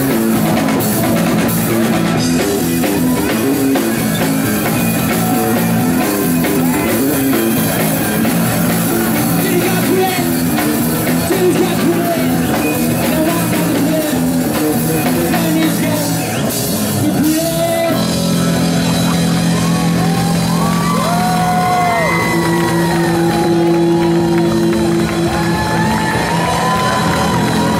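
Punk rock band playing live: distorted electric guitars, bass and drum kit, with singing. About 18 seconds in the playing changes to held notes with a voice line above them.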